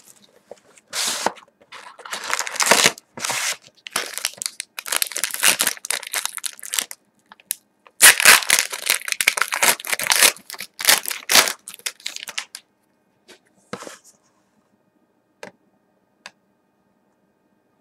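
Plastic wrapping and a foil trading-card pack crinkling and tearing as they are opened, in a run of irregular rustling bursts that stops about twelve seconds in. A few faint clicks of cards being handled follow.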